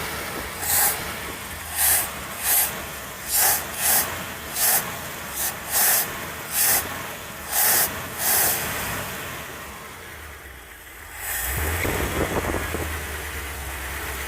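About a dozen short hissing spurts, roughly one every half second to a second, then about eleven seconds in the 1988 GMC C7000's engine starts and runs on its freshly rebuilt Holley 4-barrel carburetor.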